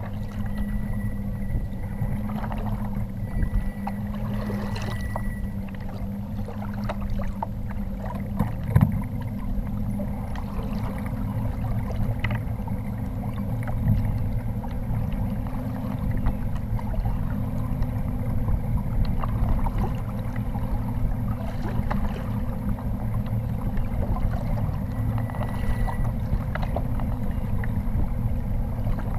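Choppy lake water lapping and splashing against the hull of a plastic fishing kayak, with wind on the microphone and a steady low hum underneath. There is one sharp knock about nine seconds in.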